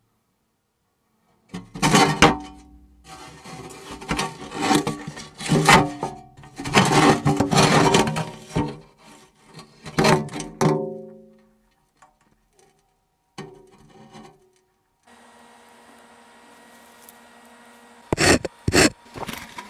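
Metal scraping and clanking with ringing tones, in uneven bursts for several seconds. After a pause, a steady low hum with a few held tones comes in, and there are sharp knocks near the end.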